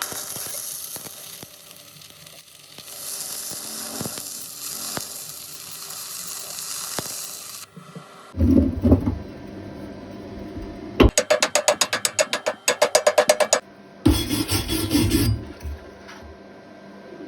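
Stick welding arc with a steady high crackling hiss that stops after about eight seconds. Then come short bursts of low rumbling and, for about two and a half seconds, a rapid run of sharp clicks, about eight a second.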